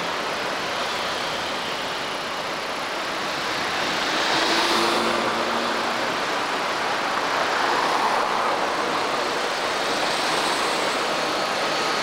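Busy city street traffic: cars and motor scooters driving past in a steady wash of engine and tyre noise. It swells as vehicles pass close, about a third of the way in and again about two-thirds in.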